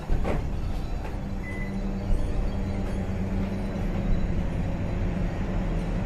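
A microwave oven being started: a knock, a short beep, then the oven running with a steady low hum.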